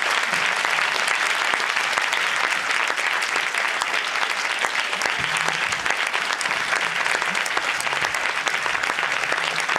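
Cinema audience applauding steadily, a dense sustained clapping that answers a call to thank the guest actor.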